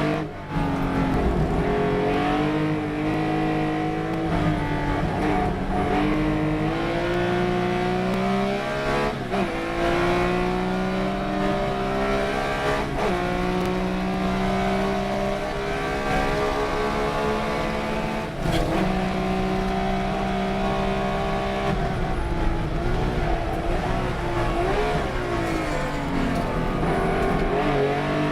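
Race car engine running hard, its pitch climbing steadily through each gear and breaking sharply at several gear changes. Near the end the revs waver up and down.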